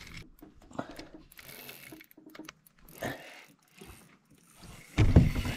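Spinning reel being cranked to retrieve a lure, its gears ticking faintly and unevenly. A sudden loud thump comes near the end.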